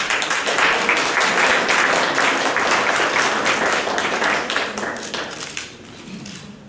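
Audience applauding: the clapping starts suddenly, holds for a few seconds, then fades away.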